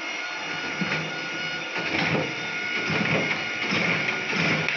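RISO CV1200 digital duplicator running, with a steady mechanical whir and a repeating beat about twice a second.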